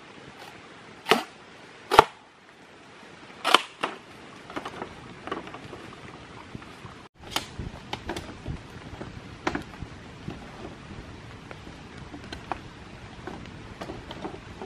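A machete chopping and splitting green bamboo poles: two loud sharp cracks about a second in and at two seconds, two more at about three and a half seconds, then a run of lighter chops and knocks, over a steady hiss of rain.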